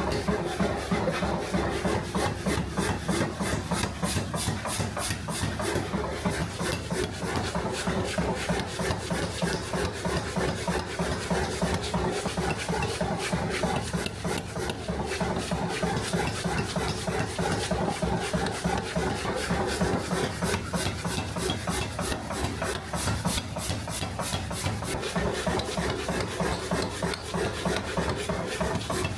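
Electric grinder or sander running steadily, its abrasive rasping against the workpiece over a steady motor hum.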